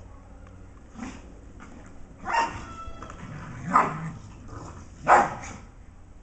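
Dogs barking while they play-fight: three short, loud barks about a second and a half apart, with softer sounds from the dogs between.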